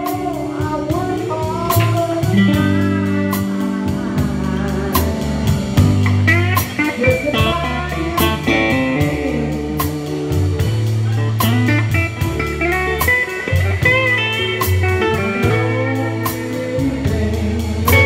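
Live blues band playing: a Telecaster electric guitar plays lead lines with bent notes over a bass line and drums keeping a steady beat on the cymbals.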